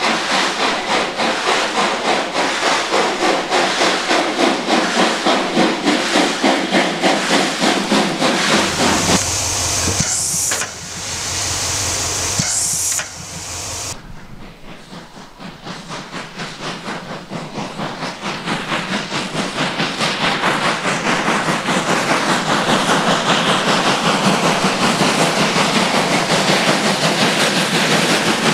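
Class 52 2-10-0 steam locomotive working, its exhaust beats chuffing in a steady rhythm, with a stretch of loud steam hiss around the middle. After a break the beats return and grow steadily louder as the locomotive approaches hauling a freight train.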